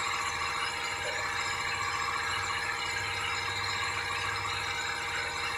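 Turret milling machine's spindle running steadily while its cutter bores into a thick metal plate, machining noise that stays even throughout.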